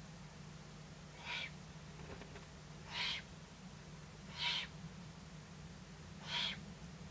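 Eurasian eagle-owl owlet giving its hoarse, hissing begging call four times, about once every one and a half seconds.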